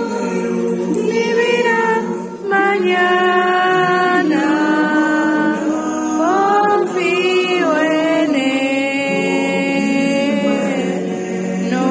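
Young girl singing a worship hymn into a microphone over a sustained musical accompaniment, her voice gliding between held notes, with a short breath-break about two seconds in.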